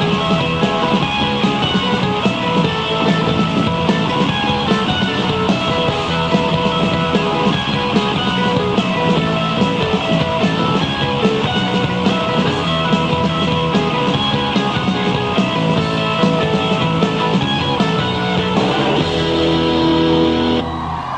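Live rock band playing an instrumental passage with electric guitar and drums, loud and steady. About nineteen seconds in the playing turns into a long held chord that drops away right at the end.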